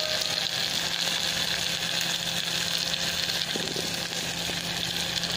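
Sliced ingredients sizzling steadily in hot oil in a frying pan, with a constant low hum underneath.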